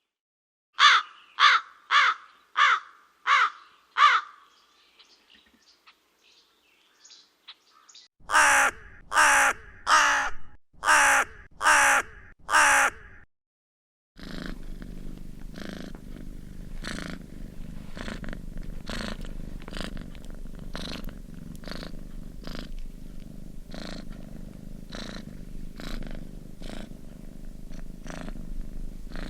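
Crows cawing in two series of six harsh calls, the second series louder, followed by a cat purring steadily from about halfway through.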